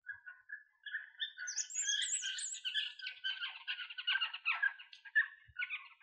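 Elf owl calling: a rapid run of high, yelping, chattering notes. It starts as a few separate notes, thickens into dense chatter, and breaks up again near the end.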